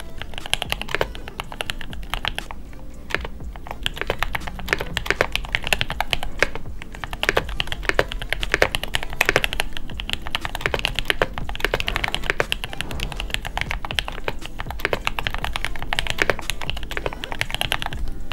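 Fast typing on a mechanical computer keyboard: a dense, rapid clatter of keystrokes with a few short pauses.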